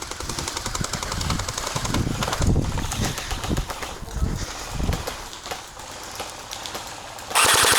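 Electric gel blasters firing full-auto in rapid bursts, fainter at first with some low thumps, then a much louder full-auto burst from a gel blaster close by starting near the end.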